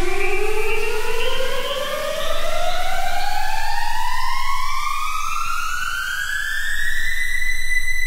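Vital wavetable synth preset playing a single tone that slides steadily upward in pitch over about three octaves, then settles on a steady high note about seven seconds in, with a faint low noise layer underneath.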